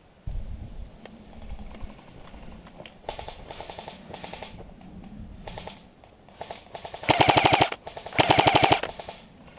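Airsoft rifle firing on full auto in short bursts of rapid, evenly spaced clicks: a few fainter bursts, then two loud bursts about a second apart near the end.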